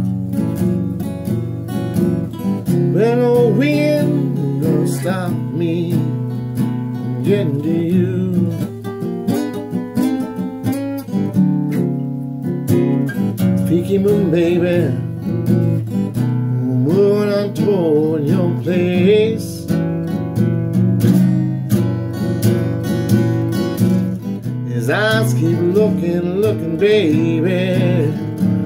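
A man singing a blues song, accompanying himself on a strummed acoustic guitar. The vocal comes in several phrases, with the guitar carrying on between them.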